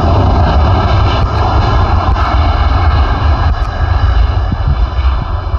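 Boeing 737 MAX's CFM LEAP-1B turbofans at takeoff thrust during the takeoff roll: loud, steady jet engine noise with a high whine on top and a deep rumble underneath.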